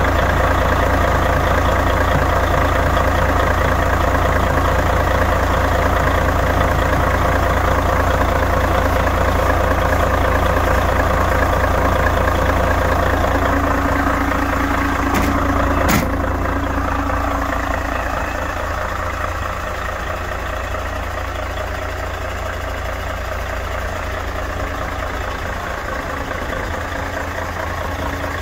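Mercedes-Benz Actros 1840's V6 diesel idling steadily, heard close up in the engine bay with the oil filler cap off. There is a single sharp click about halfway through, and the engine then sounds a little fainter and further off.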